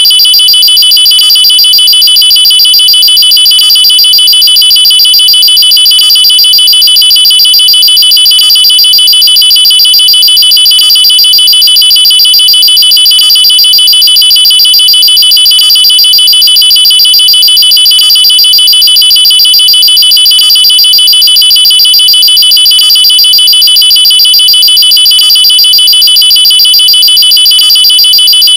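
Loud electronic alarm sounding a steady high-pitched tone with a fast buzzing pulse, with a faint seam about every two and a half seconds as it repeats. It is presented as a nuclear-attack alarm.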